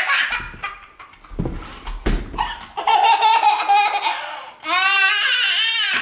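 Young child laughing hard in long fits of belly laughter, starting about three seconds in.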